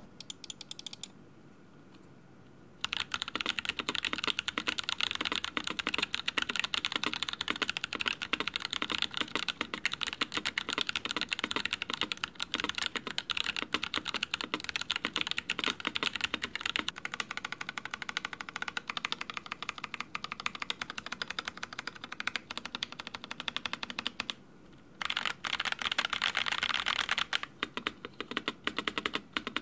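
Typing sound test on a Voyager68 mechanical keyboard fitted with Boba U4T tactile switches lubed with 205g0, switch films, 2 mm EVA foam inside and Cherry-profile keycaps: fast, continuous keystrokes. The typing starts about three seconds in, stops briefly near the 25-second mark, resumes, and thins to scattered keystrokes near the end.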